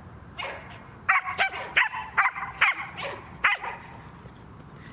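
Border collie barking: a run of about eight short, sharp, high barks, most of them packed together in the middle few seconds.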